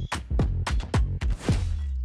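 Intro music with a quick, steady beat, about three to four hits a second; about a second and a half in the beat stops on one held low note as the higher sounds fade.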